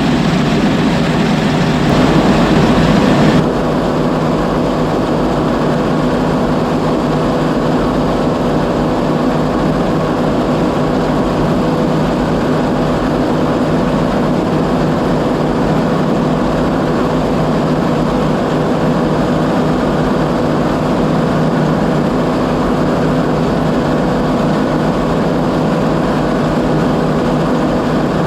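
Oliver 7300 combine running steadily: a continuous machine drone with a steady hum. A hissy upper layer cuts off suddenly about three and a half seconds in.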